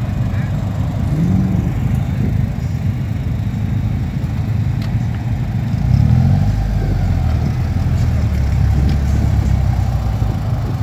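Ariel Atom 3's engine running at idle, with two short revs: one about a second in and a louder one around six seconds in.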